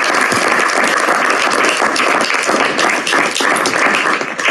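Audience applauding: many hands clapping in a dense, loud patter that starts to thin out near the end.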